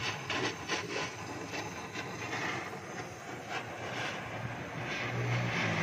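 Oxy-fuel gas welding torch hissing as the exhaust pipe is welded to the muffler with a filler rod, with several short ticks in the first two seconds.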